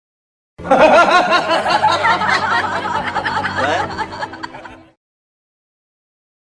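Evil-laugh meme sound effect: a villainous cackling laugh lasting about four seconds and fading out.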